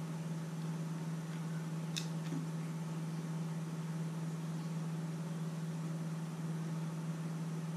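A steady low hum runs throughout. About two seconds in there is a single sharp click, with a few faint ticks around it, from small parts being handled as a circuit board is taken out of a drone.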